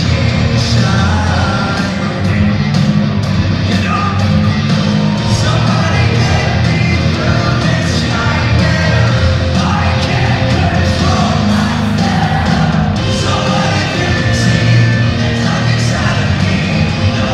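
Hard rock band playing live, with heavy bass and drums under a singer's vocals, heard from the audience in an arena.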